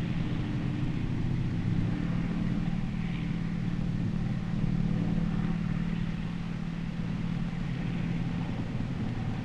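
Tanks moving across open ground: a steady low engine drone.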